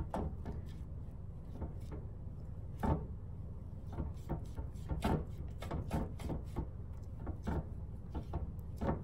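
Foam paintbrush dabbing and stroking chalk paint onto a clear vase, with the vase handled on the counter: irregular soft taps, knocks and rubs, the loudest about three seconds and about five seconds in, over a steady low hum.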